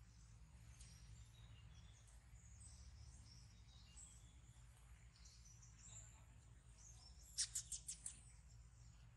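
Faint outdoor ambience with small birds chirping in the background, and a quick run of about five sharp, high chirps a little past seven seconds in.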